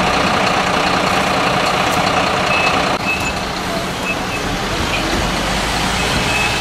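Fire engines' heavy diesel engines running, with a few short high-pitched beeps. The sound changes abruptly about three seconds in to a lower, steadier engine rumble.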